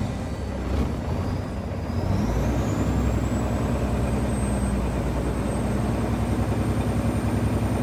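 Semi-truck's diesel engine heard from inside the cab, a steady low drone that picks up about two seconds in. A thin high whine rises over the next second or two and then holds steady.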